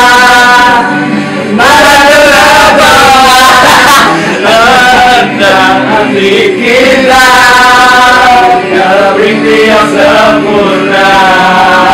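Harmonica playing long held chords in phrases a couple of seconds long, with gaps between them, over a strummed acoustic guitar.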